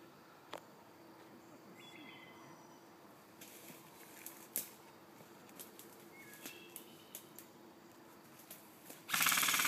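Quiet woodland background with a few faint sharp clicks and short bird chirps. Near the end, a sudden loud, fast rattling burst of full-auto fire from an electric airsoft rifle starts close by.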